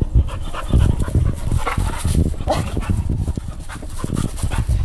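A dog barking several times at fireworks, over a rapid string of sharp crackling pops.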